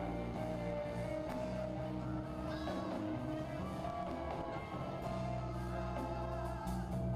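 Music with singing and instruments, played at a steady level.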